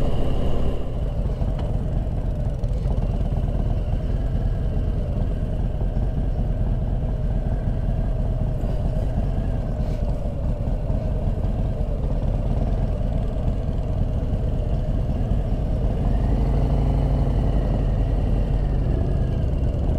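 Motorcycle engine running while riding, under a steady low wind rumble on the bike-mounted camera's microphone.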